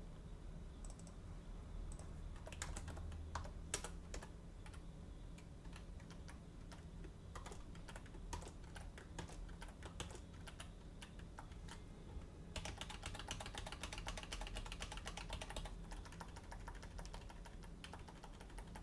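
Faint typing on a computer keyboard: scattered keystrokes, with a quick, dense run of key presses about two-thirds of the way through.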